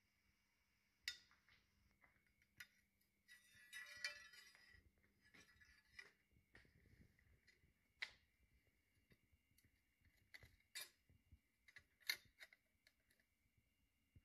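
Scattered metallic clinks and clicks from the Model T transmission parts and tools being handled, with a short stretch of rattling about three seconds in.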